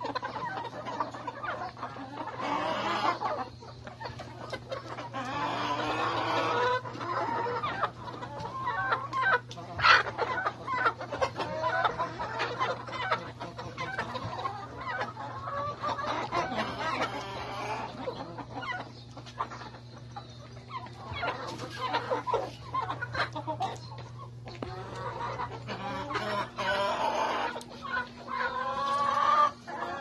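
A large flock of laying hens (Rhode Island Reds, barred Plymouth Rocks and Black Australorps) clucking and calling over one another without pause. A steady low hum runs underneath.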